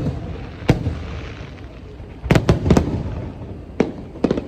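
Aerial fireworks bursting overhead in sharp bangs: one about a second in, a quick run of three a little past two seconds, and a few more near the end, with a dull rumble between them.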